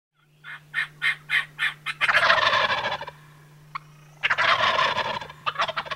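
Turkey gobbling: a quick run of about six short calls, then two long rattling gobbles, then short choppy notes near the end. A faint steady hum lies underneath.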